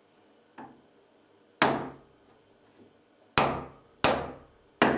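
Hammer blows on a pine board: a light tap, then four sharp knocks, the last three in quick succession, each ringing briefly.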